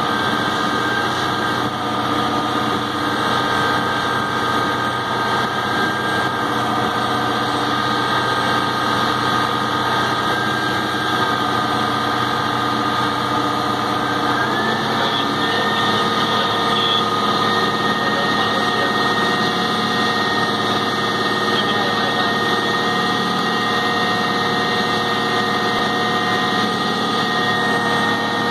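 Aircraft pushback tug's engine running steadily under load, with a steady whine over it; about halfway through, the pitch of the whine steps up slightly.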